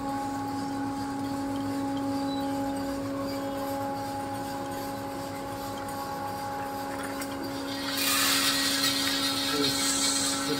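An electric motor in coffee roasting equipment spins up and then hums steadily at a fixed pitch. About eight seconds in, a loud rushing hiss starts suddenly and runs on over the hum.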